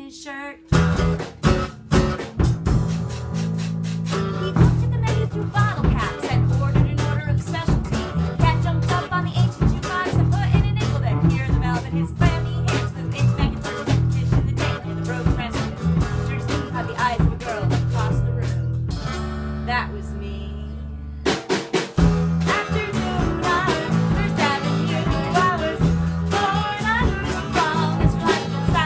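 A small band playing a song live in a room: acoustic guitar strumming, electric bass and drum kit, with a voice singing. About 19 seconds in, the drums drop out for about two seconds over a held bass note, then the full band comes back in.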